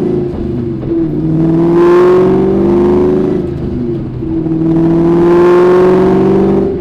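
2003 Ford SVT Cobra's supercharged 4.6-litre V8 accelerating through an uncatted Borla Stinger exhaust with an off-road X-pipe. The engine note climbs steadily in pitch, drops at a gear change about four seconds in, then climbs again.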